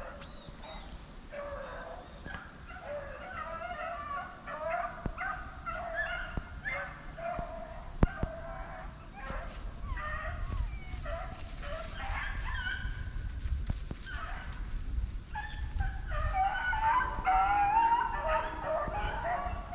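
A pack of rabbit-hunting dogs yipping and baying over one another without a break, as hounds do when running a rabbit's trail; the calls grow busiest near the end. A single sharp knock sounds about eight seconds in.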